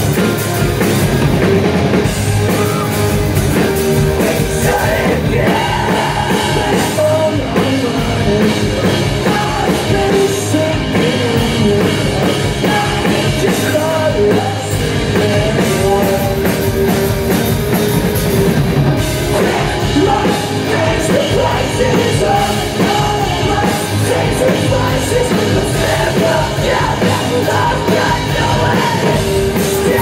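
A rock band playing live: distorted electric guitars, bass guitar and a drum kit, with a man singing into the microphone over them.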